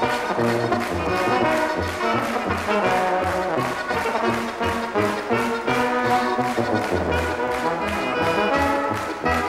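Alpine folk brass band playing: trumpets carry the melody over clarinet and accordion, with a tuba sounding a low bass note on each beat. The audience claps along in time.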